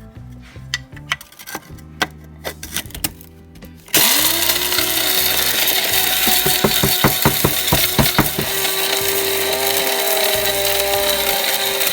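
Scattered light clicks of dry eggshells, then about four seconds in an electric blade coffee grinder starts abruptly with a rising whine and runs steadily, the shells rattling inside as they are ground to powder.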